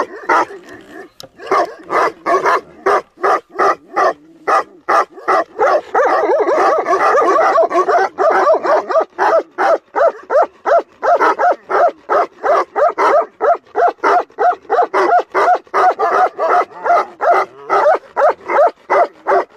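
Several Tibetan Mastiffs barking in quick, steady runs of about three barks a second. For a couple of seconds, around six seconds in, their barks overlap into a continuous din.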